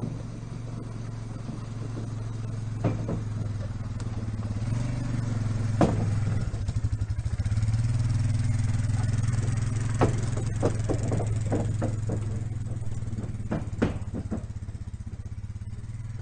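Four-wheel-drive ATV engine running steadily as the quad drives past towing a two-wheeled wooden log trailer, getting louder as it comes near and easing off as it moves away down the trail. Sharp knocks and rattles through the middle, as the empty trailer bumps over the rough trail.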